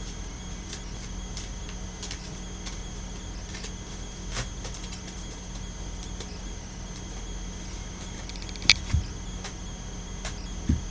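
Tarot cards being shuffled: scattered soft card clicks, a sharp snap with a quick run of ticks a little before the end, then low thumps as the deck is set down on a cloth-covered table. Under it runs a steady low hum and a steady high whine.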